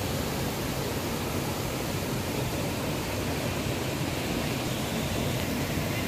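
Steady rush of water from a waterfall and cascade pouring over rocks into a pool.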